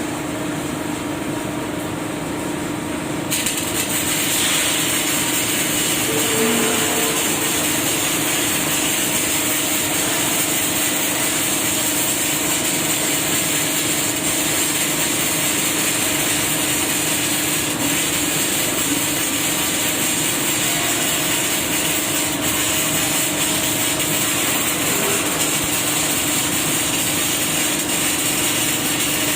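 Steady factory machinery running: a constant hum with a hissing, grinding-like noise that comes in about three seconds in and holds steady.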